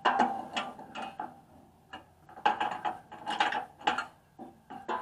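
Socket ratchet wrench clicking in short bursts as it is swung back and forth on a seized bolt at the flail mower's roller pivot.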